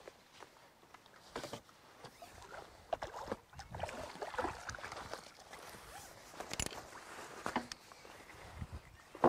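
Water splashing as a hooked fish is played on pole elastic and drawn into a landing net, with scattered clicks and knocks from the pole and tackle on the platform; the splashing is busiest about three to five seconds in.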